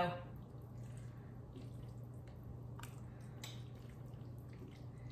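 Faint sounds of a spoon stirring a creamy chicken and vegetable filling in a stainless steel pan: soft wet squishing with scattered light clicks and scrapes of the spoon against the pan. A low steady hum runs underneath.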